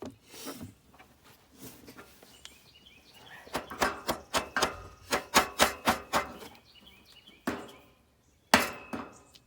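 Hammer blows on metal rake parts: scattered light taps, then a quick run of about ten hard strikes at roughly three a second, then two more single blows near the end, each with a brief metallic ring.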